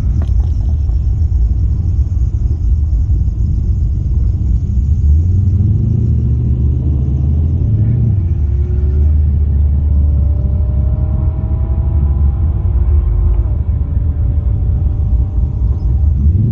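Holden VX Commodore SS's 5.7-litre LS1 V8, with an aftermarket exhaust and intake, rumbling at low revs. The revs climb gently a few times and drop back, as the car rolls along rather than running at full throttle.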